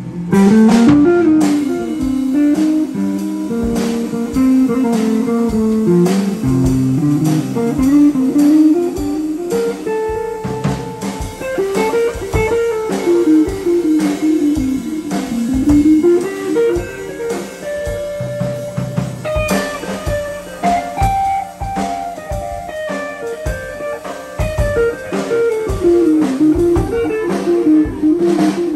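Electric guitar playing an instrumental blues break over a drum kit: lines of single notes that climb and fall in runs, with drum and cymbal hits keeping time behind.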